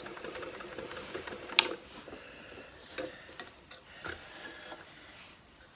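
Ashford e-Spinner 3 electric spinning wheel running, its motor and flyer making a faint steady hum, then a sharp click about a second and a half in, after which it is quieter. Light clicks and rattles follow as hands handle the wooden flyer and bobbin.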